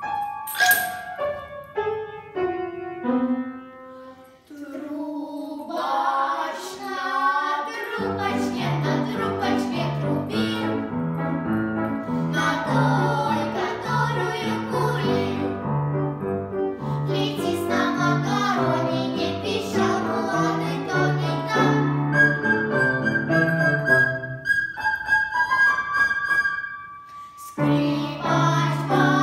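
Young girls' vocal group singing a song together; about eight seconds in an instrumental accompaniment with a steady repeating bass line comes in under the voices. Near the end a high note is held for a couple of seconds.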